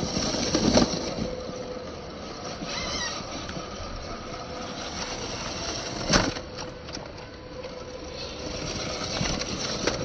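Axial SCX10 II 1/10-scale RC crawler's electric motor running with a steady whine as it drives over trail ground, with two sharp knocks, about a second in and about six seconds in.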